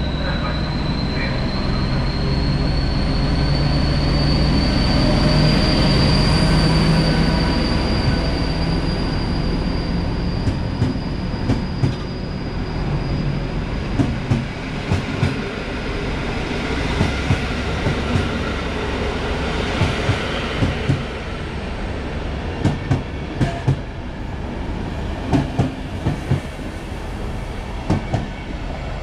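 Electric-hauled passenger train rolling past at moderate speed: a steady rumble, with a thin high whine that rises slightly in pitch over the first several seconds. After that, the wheels click in quick pairs as each coach's bogies cross the rail joints.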